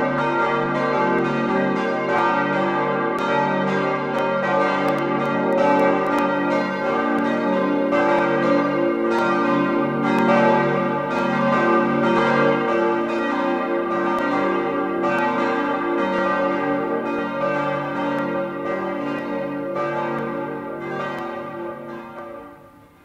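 Church bells ringing, with many overlapping strikes and long ringing tones, dying away near the end.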